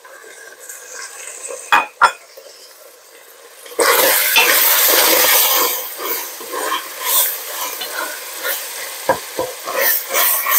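Ground beef browning in a soup pot: sizzling while a spoon stirs and breaks it up, with a couple of spoon knocks about two seconds in. Just before four seconds the sizzle suddenly gets loud for about two seconds, then settles into a steadier sizzle under repeated scraping and clinking of the spoon.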